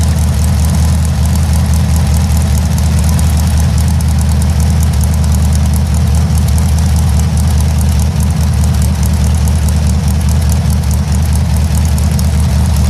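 Air-cooled flat-four engine on a test stand, idling steadily through short open exhaust stubs, with a fast, even exhaust pulse and no change in speed.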